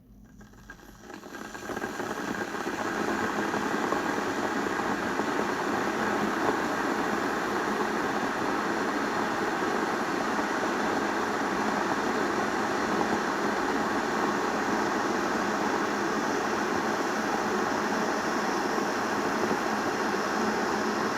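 Electric kettle heating water toward the boil: a steady rushing noise that builds up over the first few seconds, then holds even.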